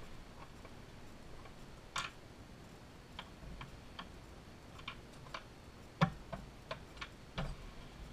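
Irregular small clicks and light knocks of metal watchmaker's tools and parts being handled and set down on a bench, the loudest about six seconds in and another a little after seven seconds.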